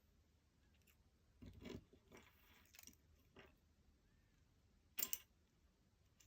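Quiet handling of small parts during an iPod nano teardown: a soft rustle and a few faint scrapes and ticks, then one sharp click about five seconds in.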